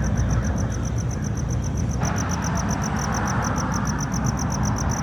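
An insect, likely a cricket, chirping in a rapid, even high-pitched pulse about nine times a second over a steady rushing, rumbling noise.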